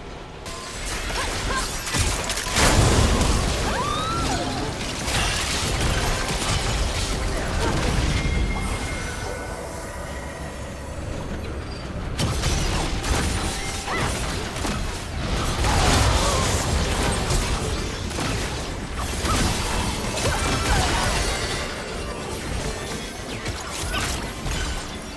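Storm wind blowing in gusts, a loud, even noise that swells and eases over several seconds at a time and dips for a few seconds near the middle.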